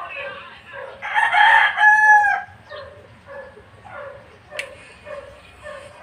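A rooster crowing once, starting about a second in and lasting about a second and a half, over faint short calls repeating about twice a second.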